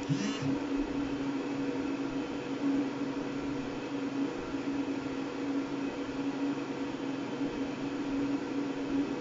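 Sharp ES-KS70K washing machine running: a steady motor hum with a whirring noise and no change in pace.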